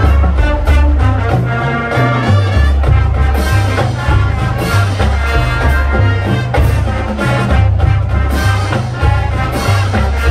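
High school marching band playing a swing-style tune, brass over drums with a bass line moving to a steady beat.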